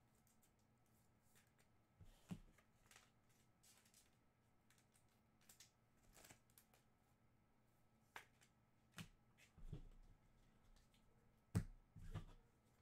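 Faint handling of trading cards: scattered soft clicks and slides as cards are flipped through and set down, with a sharper tap near the end.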